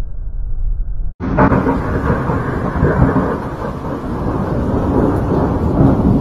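Thunder rumbling continuously. About a second in, the sound drops out for a moment, then comes back louder and fuller.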